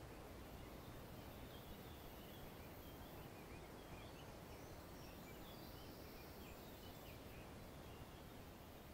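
Faint outdoor ambience: a steady low hiss with scattered short, faint bird chirps.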